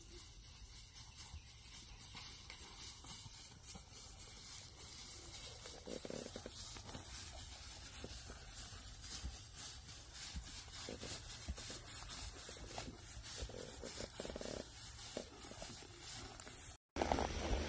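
Faint outdoor field ambience with a low steady rumble and scattered faint ticks. Near the end the sound cuts out for a moment, then comes back as louder, noisier ambience.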